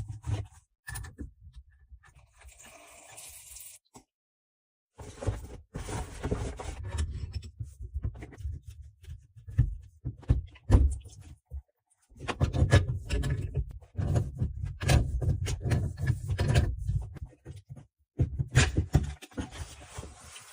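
Handling noise: irregular knocks, clicks and scrapes in uneven stretches, with a low rumble under them. The stretches are broken by sudden dead gaps about 4 s, 12 s and 18 s in.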